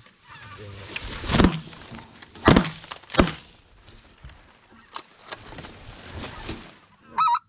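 Shotgun blasts as the hunters shoot at geese: three loud shots about a second, two and a half and three seconds in, with fainter shots around five seconds. Near the end comes a short, high goose call.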